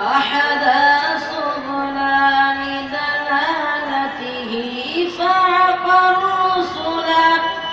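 A child chanting a melodic Islamic recitation in long, ornamented held notes.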